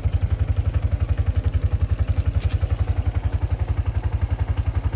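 The engine of the small vehicle carrying the camera, running at idle as a steady, low, even pulsing beat of about eight beats a second.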